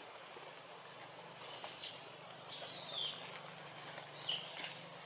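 Three short, high-pitched animal calls, each ending in a falling glide, about a second apart.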